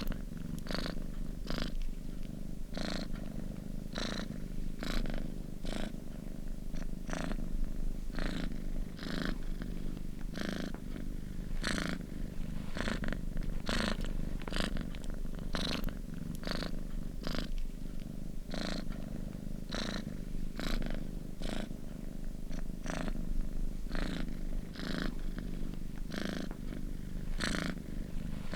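Domestic cat purring steadily, with a regular pulse about once a second as the purr rises and falls with each breath.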